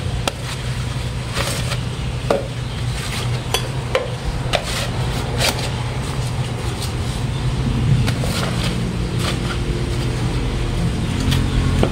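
Small hand trowel scraping and scooping potting soil, with scattered light knocks and scrapes against a plastic flower pot, over a steady low rumble.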